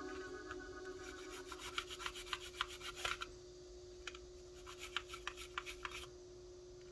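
Light scraping and rubbing on small parts of a cassette Walkman, with quick small clicks, busiest in the middle seconds, over a faint steady hum.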